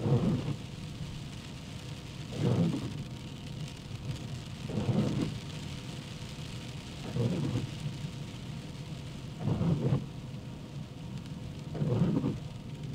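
Car windshield wipers sweeping across wet glass six times, about every two and a half seconds, over a steady hiss of rain and tyres on the wet road.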